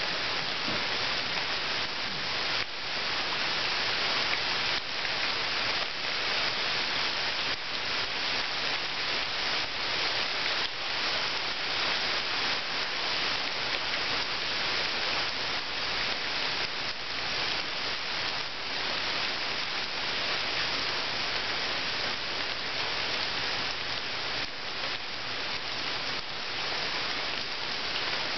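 Steady rain falling into a pool of water, many small drop hits blending into an even hiss.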